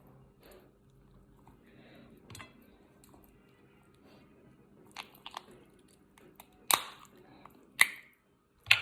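Snow crab being eaten: chewing, with the shells cracked and broken apart by hand, three sharp cracks near the end the loudest.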